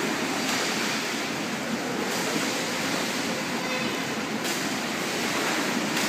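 Steady rushing wash of pool water splashing and churning.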